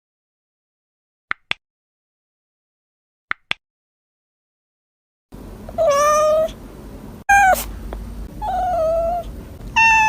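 A domestic cat meowing four times in a row, starting about five seconds in, each meow short and pitched with a slight bend. Before the meows there are two pairs of short clicks.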